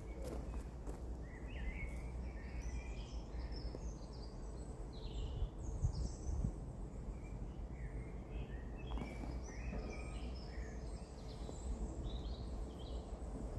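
Songbirds singing in woodland, a steady run of short chirps and warbled phrases from more than one bird, over a low rumble of outdoor background noise.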